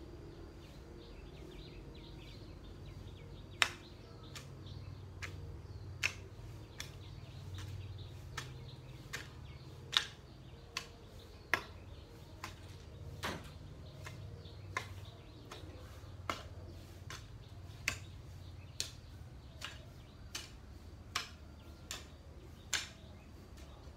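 A hand-swung cutting tool chopping through weeds and grass in sharp, regular strikes, a little more than one a second, starting a few seconds in.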